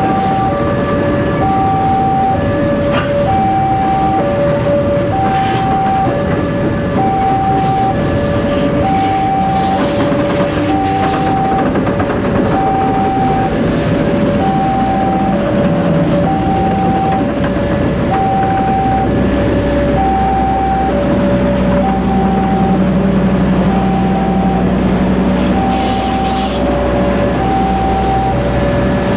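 New K3 Premium economy-class passenger coaches rolling past at a level crossing, with steady wheel-and-rail noise. Over it a level-crossing warning alarm repeats a high-low two-tone signal, about one cycle every two seconds. A deeper hum joins about halfway through and fades near the end.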